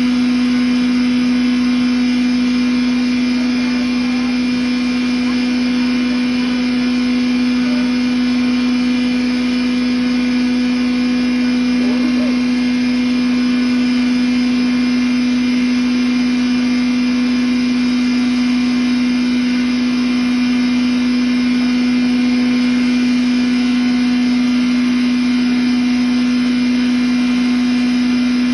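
10 HP rice-husk and cattle-feed grinder running with a loud, steady hum and whir while grain is poured into its hopper.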